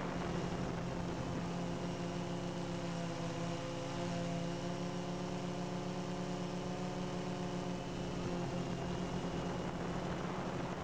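DJI Phantom 2 quadcopter's four brushless motors and propellers buzzing steadily in flight, heard close up. A higher hum of overtones swells in the middle and fades near the end.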